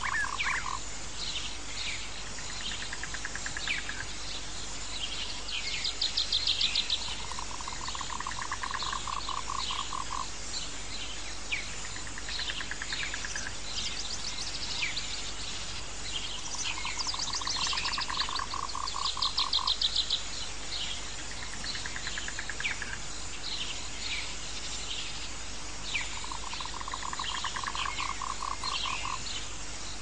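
Rainforest ambience: a frog's rapid pulsed trill repeats four times, about eight to nine seconds apart, over a steady high insect hiss and many short falling bird chirps. A higher, louder rattling trill comes twice, about 6 and 19 seconds in.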